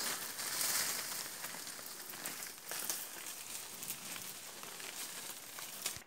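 Leaves and undergrowth rustling and crackling, with scattered small clicks of twigs, as someone moves through the forest brush.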